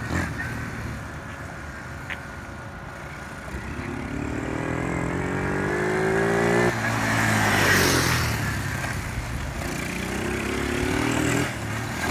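Apollo VRX125 quad's small 125cc single-cylinder four-stroke engine being ridden: faint at first, then revving up with a rising pitch that breaks off abruptly about two-thirds of the way in. It is loudest just after that, then climbs in pitch again and drops off near the end.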